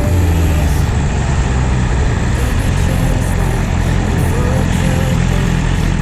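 Motorcycle riding on the road: the engine's low drone under steady rushing wind noise on a helmet-mounted microphone.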